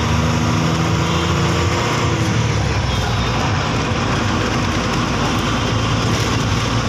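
Steady rumble and engine hum of a road vehicle crossing a bridge, heard from inside it. The engine's low note shifts and fades about two seconds in.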